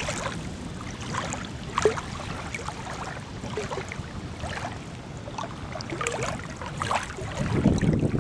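Small waves lapping and splashing irregularly at the lake shore over a low rumble; near the end the low rumble swells louder.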